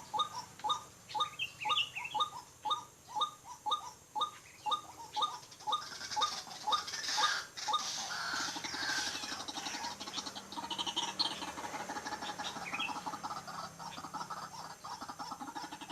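White-breasted waterhen calling: a steady run of repeated croaking 'kru-ak' notes, about two to three a second. About six seconds in it turns into a denser, harsher chatter with a rapid low pulsing.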